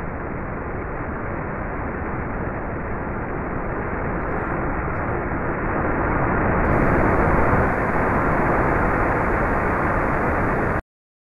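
Onboard roar of the Falcon 1 rocket's first-stage Merlin engine in powered ascent: a steady rushing roar with a dull, muffled top that grows gradually louder, then cuts off suddenly about a second before the end.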